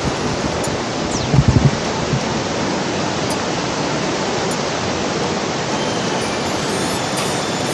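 Steady rush of water falling at Shiraito Falls, a broad curtain of thin streams pouring over a rock wall. About a second and a half in there is a short cluster of low thumps.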